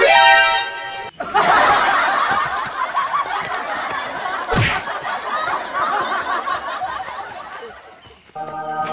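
A loud, sustained shrill note for about a second, then a long stretch of laughter. There is a single sharp smack about halfway through, and a held musical chord comes in near the end.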